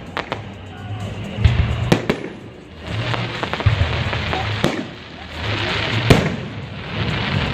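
Fireworks salute: about five sharp bangs of shells bursting, with stretches of crackling between them, over background music.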